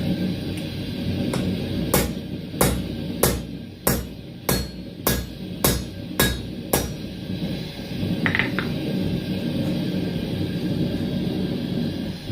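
Nine hammer blows on steel tong stock in a steady rhythm, about one every 0.6 seconds, then a single lighter metallic clink a second and a half later, over a steady low rumble.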